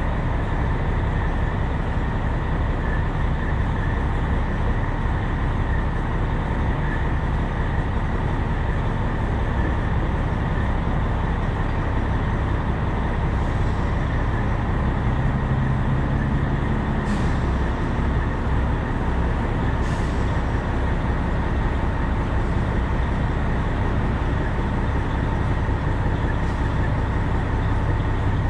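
Steady running noise of a diesel semi truck: an even low drone that does not change.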